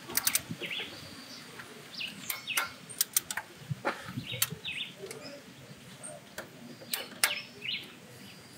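Torque wrench clicking as the M10 bolts of the V6 engine's accessory mount bracket are tightened to 44 N·m, a few clicks at a time every second or two. Birds chirp in the background.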